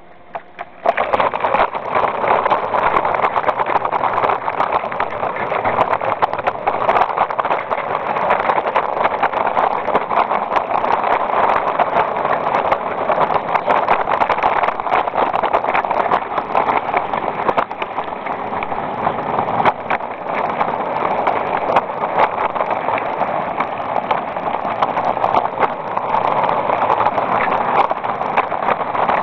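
Small live-steam garden railway train (16mm scale, 45mm gauge) running, heard from on board: a steady rushing running noise with many quick clicks, starting about a second in.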